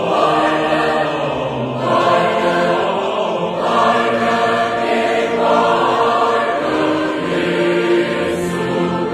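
Large mixed choir of men and women singing a hymn together, holding long notes that change about every two seconds.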